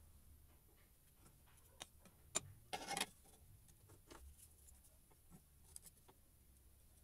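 A laminated chipboard board set down on a drill press's metal table: a sharp knock about two seconds in, then a brief scrape as it slides into place, followed by a few light handling clicks.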